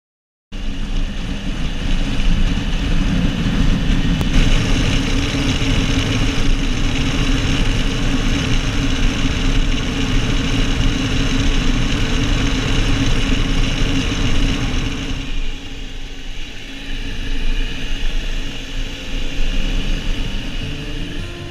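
Motorcycle engine running under way with wind rushing past the handlebar-mounted camera, a dense steady noise. It grows quieter and thinner about fifteen seconds in.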